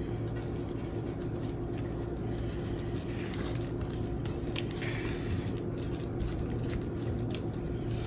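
Silicone spatula stirring and folding thick, lumpy buttermilk pancake batter in a ceramic bowl: irregular wet squelches and light scrapes against the bowl. A steady low hum runs underneath.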